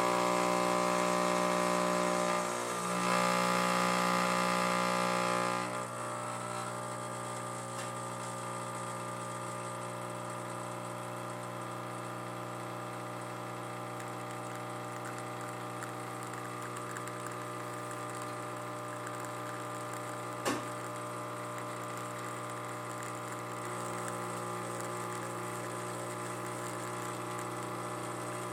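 Brewtus II espresso machine's vibratory pump humming through an espresso shot. It is louder for about the first six seconds, then settles to a lower, steady hum. A single sharp click comes about twenty seconds in.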